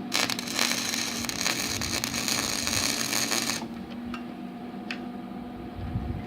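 Wire-feed (MIG) welder arc crackling and sizzling while tack-welding steel track parts, for about three and a half seconds before it cuts off.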